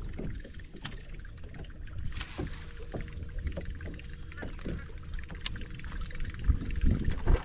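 Low, uneven rumble of moving water and wind, with a few faint sharp clicks scattered through it.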